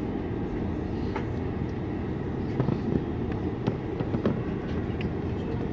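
Steady low rumble inside a Boeing 747-400's passenger cabin on the ground, with scattered short clicks and knocks.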